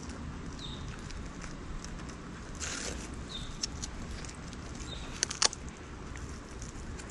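Hands strapping a bag battery onto an e-bike frame: a short rasp of hook-and-loop (Velcro) strap being pulled about two and a half seconds in, then a few sharp clicks and taps around five seconds in, the loudest sounds. Faint high chirps come now and then.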